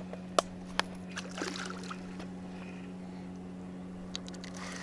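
Two sharp knocks a little under half a second apart, then brief light splashing of water and a few faint clicks near the end, over a steady low hum. The splashing is a hooked chub near the surface as it is played in on the line.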